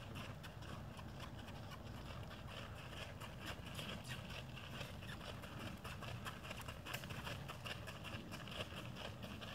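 Mule's hooves crunching on gravel at a walk: a steady run of irregular footfalls and gravel scrunches, over a low steady rumble.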